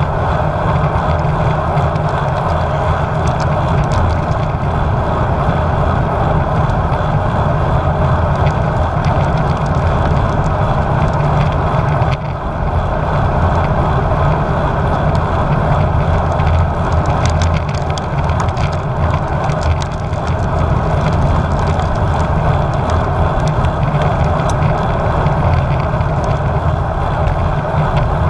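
Steady, loud wind rush and road noise on a GoPro's microphone while riding a road bike at speed. There is a brief dip about twelve seconds in.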